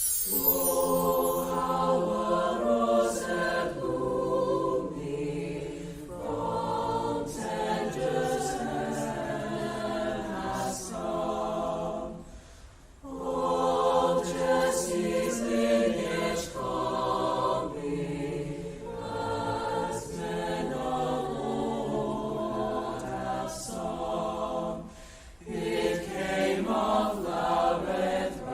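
A school choir singing, with long held chords in phrases and short breaks between phrases, one about halfway through and another near the end.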